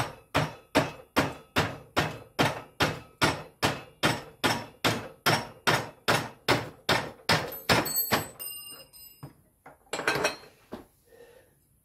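Hand hammer striking metal in a steady run of sharp blows, about three a second, for some eight seconds. A short metallic ring follows, then a last cluster of knocks near the end.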